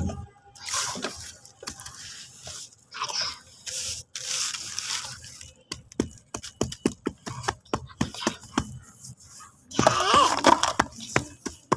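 A hand rubbing and pressing damp, crumbly sand-and-cement mix on a plastic sheet. First come several gritty scraping strokes, then a run of quick small crackling clicks. About ten seconds in there is a louder, busier burst with a brief voice in it.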